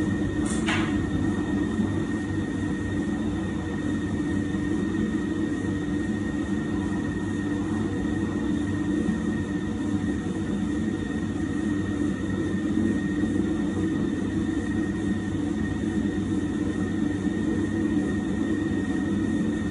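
Large food mixer running steadily: a low drone with a faint constant whine as it beats a big batch of shortbread dough until it comes together. A brief knock about half a second in.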